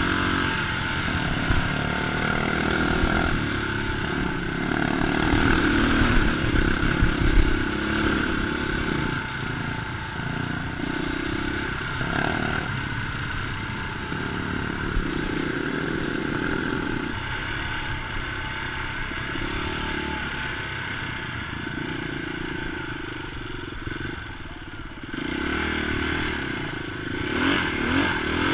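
Dirt bike engine running while riding a rough trail, its revs rising and falling with the throttle, with a short drop in the revs about three-quarters of the way through and revving up again near the end.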